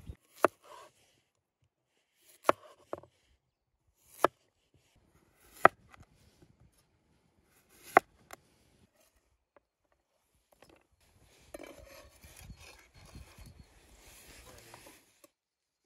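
Chef's knife slicing raw potatoes on a wooden cutting board: single sharp knocks of the blade hitting the board every second or two, then a quicker run of softer cuts and scraping of slices across the board near the end.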